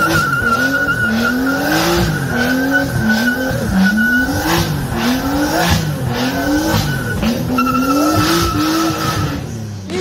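Nissan sedan's engine revving up and down about once a second while its tyres spin and squeal in a burnout, with a steady high squeal broken briefly a couple of times.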